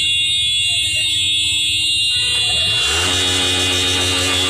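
Vehicle horns and a steady high-pitched alarm-like tone from jammed traffic. A long, deeper horn blast starts about three seconds in and holds for nearly two seconds.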